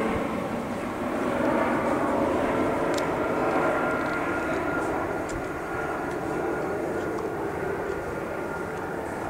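A steady engine drone that holds without a clear rise or fall.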